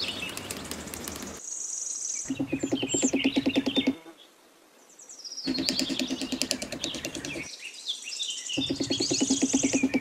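Birds chirping throughout, with three bursts of rapid, light, evenly spaced taps: a small hammer driving thin wooden posts into sand.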